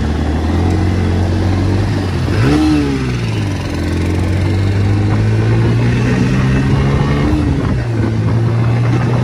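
Bajaj Pulsar N160 motorcycle's single-cylinder engine running steadily on the road during a test ride. The revs rise and fall briefly about two and a half seconds in and again near seven seconds, over a rush of road and wind noise.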